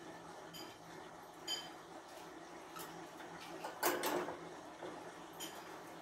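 A cockatiel clambering about its wire cage makes small clicks and taps on the bars, perch and hanging toy, a few of them with a slight metallic ring. A louder, brief rustling clatter comes about four seconds in.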